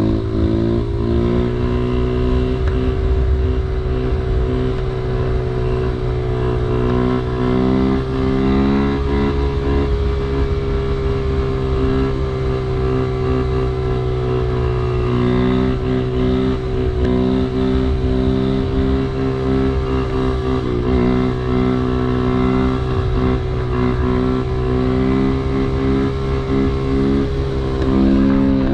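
Honda Grom's 125 cc single-cylinder four-stroke engine running at a steady cruising speed, heard from on the bike with wind rush on the microphone.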